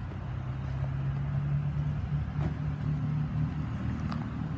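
A motor running with a steady low hum that swells slightly after about a second, with two faint light clicks in the second half.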